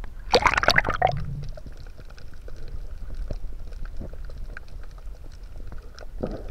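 Action camera plunged under seawater: a loud splash and bubbling about half a second in, then muffled underwater sound with scattered faint clicks and crackles, and another short bubbling burst near the end.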